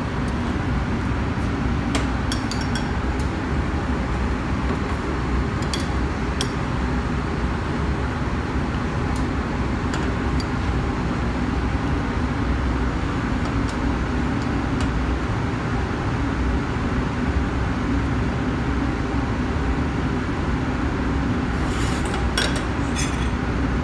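Steady rushing noise of commercial kitchen ventilation, with a few light clicks of metal tongs against china plates about two and six seconds in and again near the end.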